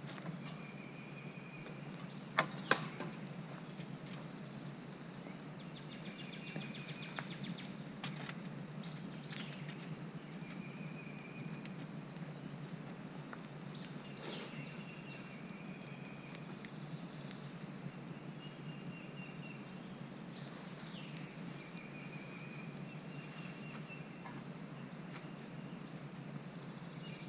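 Birds calling outdoors: short high calls repeated every few seconds over steady low background noise, with two sharp clicks a little over two seconds in.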